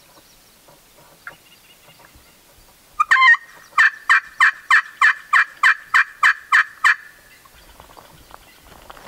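Hand-held turkey call worked by a hunter, imitating a hen: a short note, then a run of about eleven evenly spaced yelps, about three a second.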